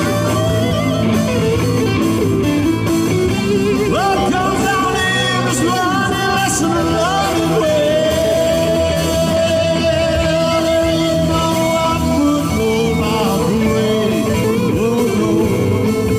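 Live rock band playing an instrumental passage: an electric guitar lead with bent and sliding notes, holding one long note about halfway through, over keyboards, bass and drums.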